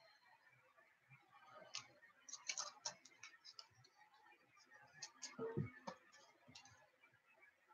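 Near silence broken by a few faint clicks and taps, in two short clusters about two and five seconds in, from trading cards being handled on a table.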